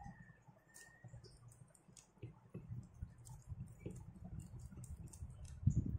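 Small screwdriver turning a screw back into the body of a disassembled spinning reel: faint scattered clicks and light handling knocks of metal and plastic parts, the knocks growing louder near the end.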